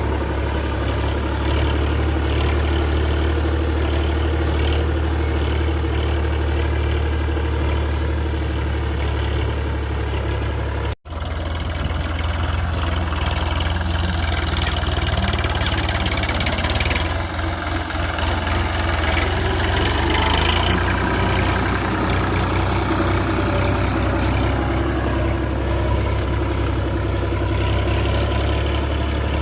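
Massey Ferguson 9000 50 hp diesel tractor engine running steadily with a low, even hum. The sound breaks off for an instant about eleven seconds in, then carries on.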